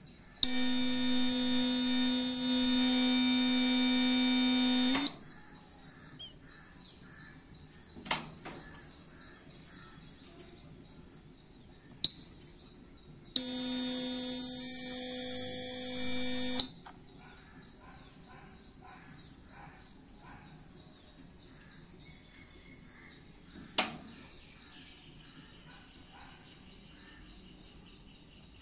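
The buzzer of a water-tank overflow alarm sounds a loud, steady, high-pitched tone twice: about four and a half seconds near the start, then about three seconds from the middle. The alarm is triggered by the sensing wires touching water, the signal for a full tank. A few short sharp clicks come in between.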